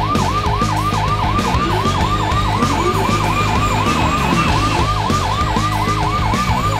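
Fast yelping electronic siren, sweeping down and up in pitch about four times a second, as from a toy fire truck.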